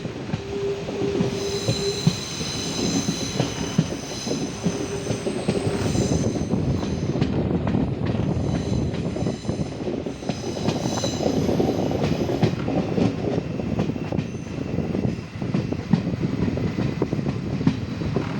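A train running on the rails: a continuous rumble with scattered rail clicks, and the wheels squealing in high steady tones that come and go, loudest in the first few seconds and again about halfway through.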